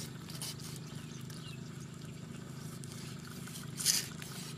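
Wet squelches and small scrapes of a cleaver and fingers pulling out a fish's gills and guts on a wooden chopping board, with one short, louder wet scrape near the end. A steady low hum runs underneath.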